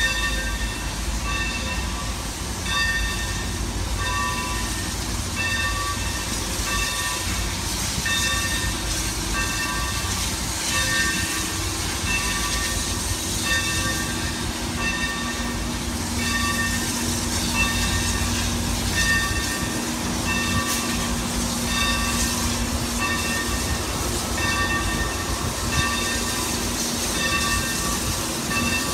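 Santa Fe 3751 steam locomotive's bell ringing in steady, evenly spaced strokes, over the low rumble of the engine moving slowly along the platform.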